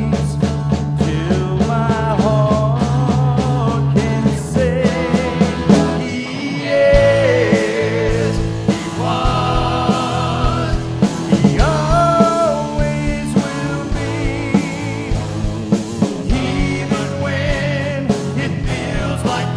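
Contemporary Christian worship song playing: a full band with a wavering lead melody over a steady beat.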